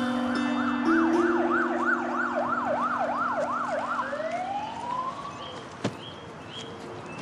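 Emergency-vehicle siren in a fast yelping wail, sweeping up and down two to three times a second, then slowing into one long rise that fades away. Held low music notes sound under it and die out about halfway through. A single sharp knock comes shortly before the end.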